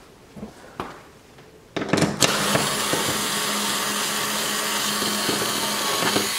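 A few light clicks, then about two seconds in a cordless power screwdriver with a nut-driver bit starts and runs steadily with a constant hum, spinning a nut off its stud.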